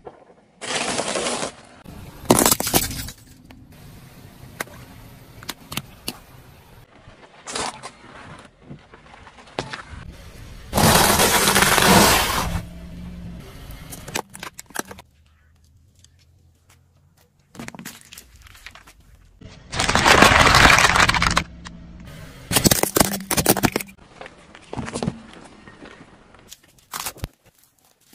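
Car tyre rolling over and crushing a series of objects on asphalt, among them stacked biscuits and a hard plastic toy. It comes as several loud bursts of crunching and cracking, with scattered snaps and clicks between them.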